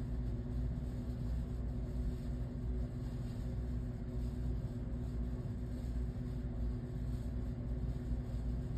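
Steady low rumble with a constant hum, like a running machine, unchanging throughout.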